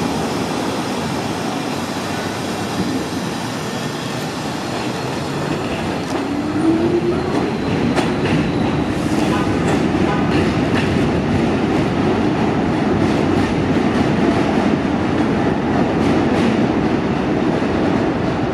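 R62 subway train pulling out of an elevated station: a steady heavy rumble, a rising whine about six seconds in as it speeds up, then a run of wheel clacks over the rail joints.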